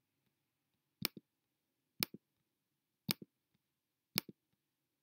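Computer mouse button clicked four times, about once a second. Each is a sharp press followed by a softer release, as costumes are selected one after another.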